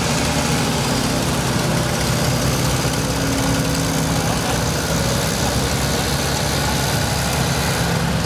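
Farm tractor engines running steadily at low speed as a line of tractors and a pickup truck drives slowly past.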